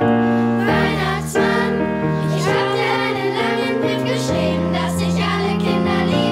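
A group of school children singing a song together with instrumental accompaniment.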